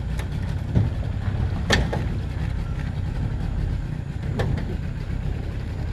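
Small boat's motor running steadily with a low rumble, with a few sharp knocks, the loudest about two seconds in and again about four seconds in.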